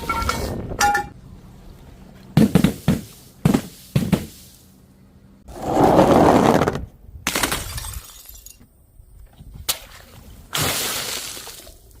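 Glass bottles smashing and shattering in a series of breaks: a quick cluster of sharp cracks, then longer crashes of breaking glass.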